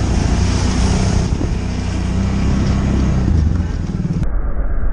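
Kawasaki Brute Force ATV engine running steadily under way while towing a sled. The sound turns suddenly duller about four seconds in.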